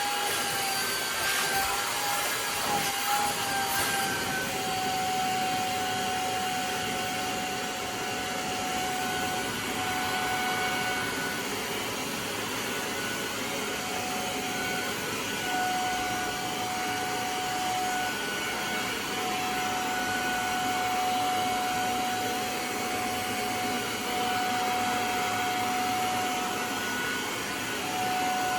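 Hoover portable spot cleaner running, its suction motor giving a steady whine over rushing air. The pitch wavers for the first few seconds, then holds level, dropping out briefly every few seconds.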